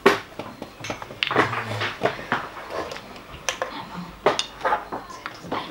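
Chess pieces being set down and captured on a board, and a digital chess clock's buttons being pressed, giving a string of sharp, uneven clacks several times over.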